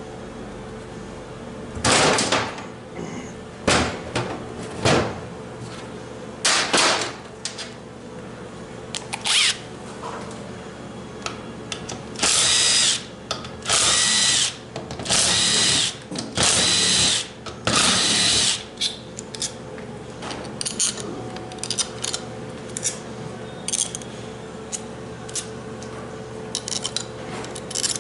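Power drill-driver running bolts in a series of short bursts, about a second each, several in quick succession around the middle, with lighter clicks and handling noises between.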